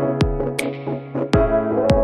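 Electronic background music with sustained synthesizer chords over a drum-machine beat with deep kick drums.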